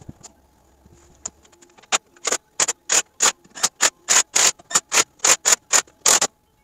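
Brisk rubbing strokes at the front bumper of a pickup truck, about three to four a second, starting about two seconds in and stopping shortly before the end.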